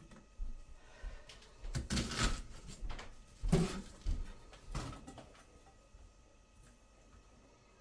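A handful of knocks and clunks, like things being handled and set down, in the first five seconds, the loudest about three and a half seconds in.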